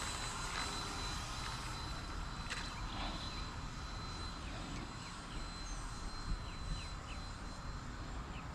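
Distant electric ducted fan of an E-flite Habu 70 mm RC jet in flight: a thin, steady high whine at a constant pitch, over a low rumbling noise. Faint short chirps come in over the second half.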